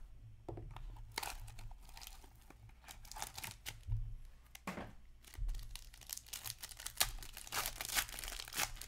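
Hands handling an Upper Deck Black Diamond hockey card box and tearing open the wrapped pack inside: scattered rustling and scraping that turns into dense crinkling and tearing of the wrapper near the end.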